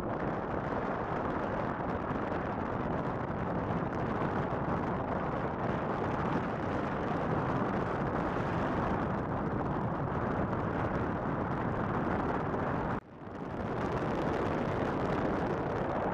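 Wind buffeting the microphone on an open ship's deck: a steady, rushing noise that drops out for a moment about three quarters of the way through, then comes back.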